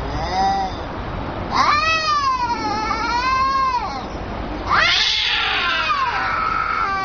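Two angry domestic cats caterwauling in a standoff: threat yowls. A short yowl comes first, then a long wavering yowl of about two and a half seconds, then a harsher, noisier yowl starting near the five-second mark.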